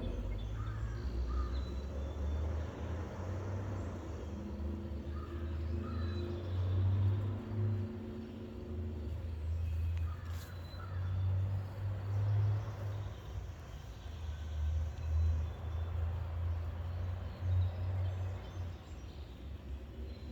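A heavy truck's diesel engine running, a deep rumble that swells and eases, with its hum fading after about nine seconds. Crows caw a few times over it.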